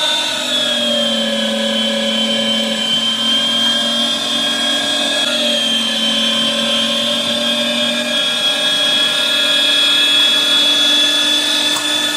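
A 500-watt electric meat grinder's motor running under load, grinding partially frozen chuck and sirloin through the fine plate. It makes a steady whine that sags a little in pitch about a second in and climbs back toward the end.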